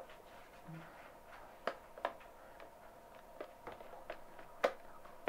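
Faint scattered clicks and light taps, about half a dozen over a few seconds, the sharpest near the end, as small camera gear is handled.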